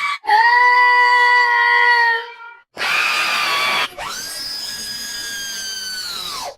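Cartoon scream sound effects played one after another: a steady high-pitched scream lasting about two seconds, a short rough scream without a clear pitch, then a long steady high scream that drops in pitch as it ends.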